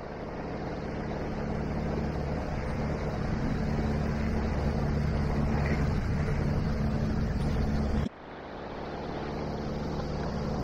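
Outboard motor of a MacGregor 26X sailboat running steadily at idle, a low hum under wind and water hiss as the boat moves under its jib. The sound cuts out abruptly about eight seconds in and fades back up.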